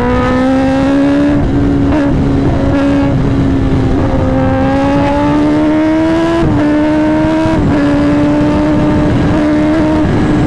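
Kawasaki ZX-10R inline-four superbike, fitted with an SC-Project S1 full-system titanium exhaust, running under way. Its engine note climbs slowly and steadily, with a sharp drop in pitch about six and a half seconds in.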